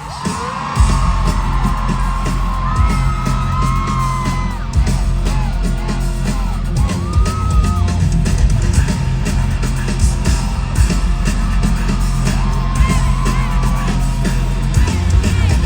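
Loud live hip-hop music over a concert PA with a heavy bass line that kicks in under a second in, while the crowd screams and whoops over it.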